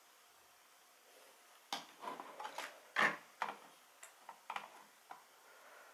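A quick, irregular run of about a dozen light clicks and knocks, starting a couple of seconds in and lasting about three seconds.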